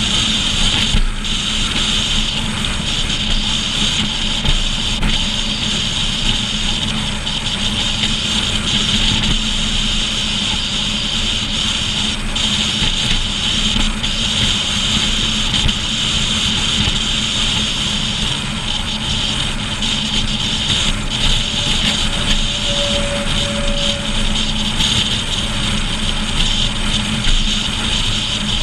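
Steady road and wind noise of a pickup towing a trailer at highway speed, picked up by a camera mounted on the trailer behind the truck, with a constant low drone underneath.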